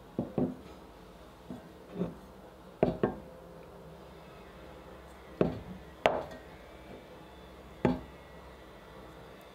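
Heavy enamelled cast-iron cookware being handled and set down on a wooden tabletop: a string of separate knocks and clunks, one about six seconds in with a short metallic ring.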